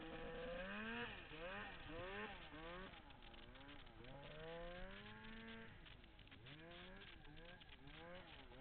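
Turbocharged Polaris Dragon 800 two-stroke snowmobile engine revving up and down over and over, its pitch rising and falling about once a second as the throttle is worked.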